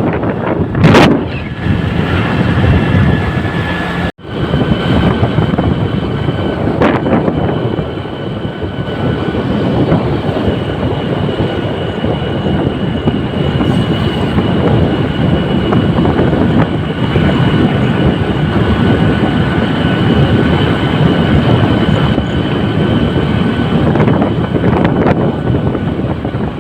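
Moving vehicle's road and engine noise with wind buffeting the microphone, and a faint steady whine over it. The sound breaks off abruptly for an instant about four seconds in, then carries on much the same.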